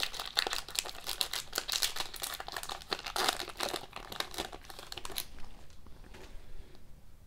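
Foil trading-card pack wrapper being torn open and crinkled as the cards are slid out. The crinkling stops about five seconds in.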